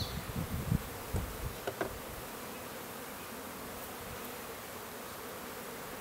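Honeybees from a three-pound package buzzing steadily as a mass, with a few low bumps and rustles in the first two seconds.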